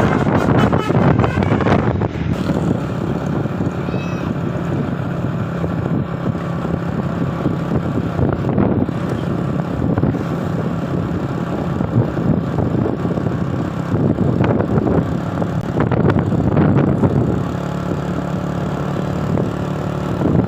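Bus engine running with road and traffic noise. In the first two seconds, the tail of a Basuri V3 'telolet' musical horn fades out.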